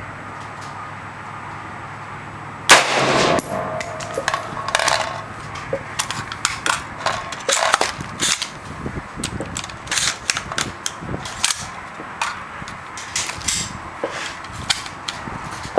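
A single .223 AR-15 rifle shot about three seconds in, sharp and echoing for about a second. It is followed by a string of irregular smaller clicks and knocks.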